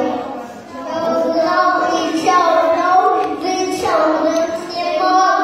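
Preschool children singing a song.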